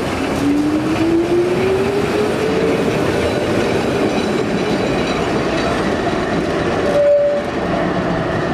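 Electric tram pulling away from the stop, its motors giving a whine that rises steadily in pitch over the first three seconds as it accelerates, over the rumble of wheels on the rails. About seven seconds in, a brief steady tone sounds and is the loudest moment.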